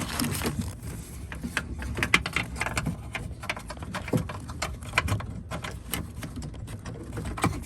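Irregular clicks, knocks and light rattles of the door lock assembly and its clips being handled and fitted inside a Honda CRX door.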